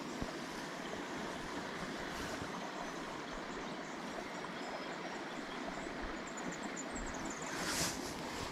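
Steady rushing of a small creek's flowing water. A brief rustle of a jacket sleeve comes near the end, with faint high bird chirps.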